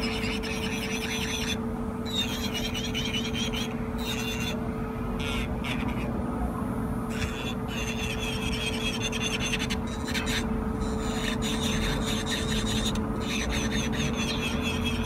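Battery-powered electric nail drill (e-file) running at a steady high speed, its motor whine holding one pitch. A scratchy filing sound comes and goes several times, as the bit touches the nail and lifts off.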